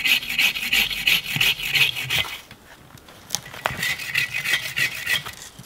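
Agawa Canyon Boreal 21 folding bow saw cutting wood in quick back-and-forth strokes. It saws in two bouts with a short pause in the middle.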